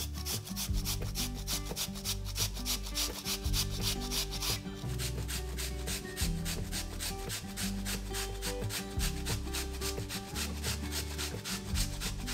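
A raw potato rasped up and down a flat stainless-steel hand grater: rapid, rhythmic scraping strokes, about four a second.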